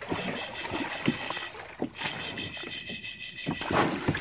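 Water splashing and slapping around a kayak, with irregular knocks against the hull, under a steady high chirring in the background.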